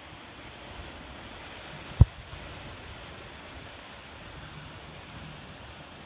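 Ocean surf washing steadily against a rocky shoreline, with wind on the microphone. A single sharp low thump about two seconds in.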